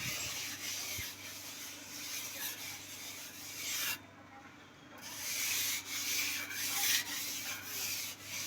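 Repeated rubbing and scraping strokes of a tool worked over a rough surface, pausing for about a second midway, over a faint steady low hum.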